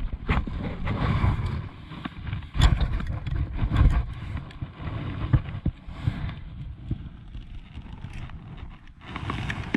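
Handling noise: a jacket sleeve rubbing and bumping against a body-worn camera, a low rustling rumble with small knocks and clicks from gear being handled. The loudest bumps come about three to four seconds in.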